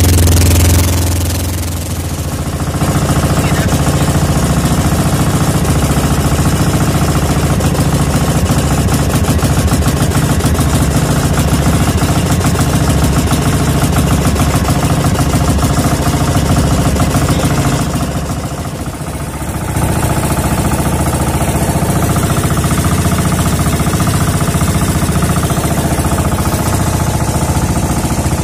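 Outrigger fishing boat's engine running steadily under way while trolling. It dips briefly in loudness twice, about two seconds in and again about two-thirds of the way through.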